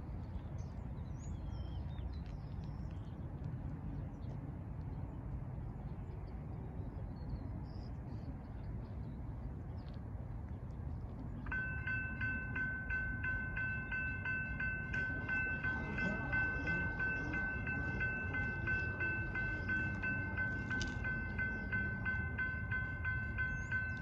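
Railroad crossing signal bells start ringing about halfway through, a rapid, steady ding that holds on: the crossing has activated for an approaching train. Before the bells, only a low outdoor rumble.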